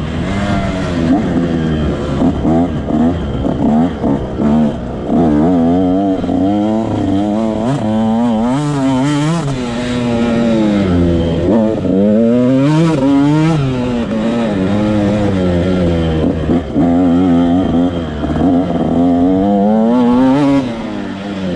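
Motocross bike engine heard from on the bike, revving hard and easing off again and again as it is ridden around the dirt track, its pitch climbing and then dropping sharply at each gear change or roll-off of the throttle.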